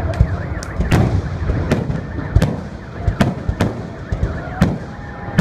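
Fireworks display: shells bursting in a quick, irregular string of bangs and pops, about three a second, over a low rumble.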